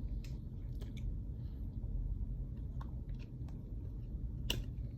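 Faint clicks and taps of small objects being handled, over a steady low hum; one sharper click about four and a half seconds in.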